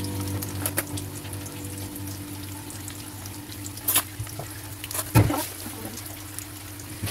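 Tempeh frying in hot oil in a pan: a steady sizzle with scattered sharp pops of spitting oil, the loudest a little after five seconds in.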